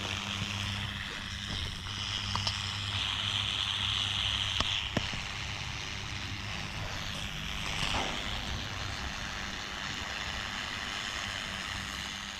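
Electrochemical etching of a steel knife blade: an electrolyte-soaked pad in a wired clip fizzing as it is held on the steel, over a steady low electrical hum. The fizz swells a couple of seconds in and again later, with a few small clicks of the clip.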